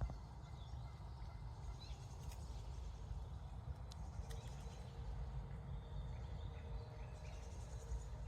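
Outdoor ambience: a steady low rumble of wind on the microphone, with faint, scattered bird chirps.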